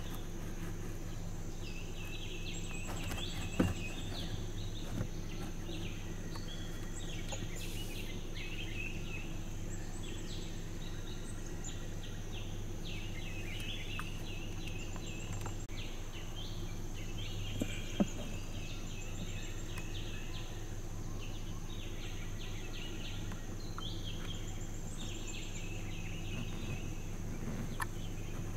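Forest ambience: birds chattering in repeated bursts over a steady high insect whine and a low steady hum. Two sharp snaps stand out, one a few seconds in and a louder one a little past the middle.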